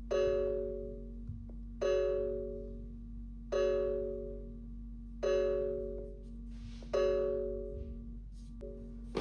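Smartphone alert tone: a bell-like chime struck five times, about every 1.7 seconds, each strike ringing out and fading before the next.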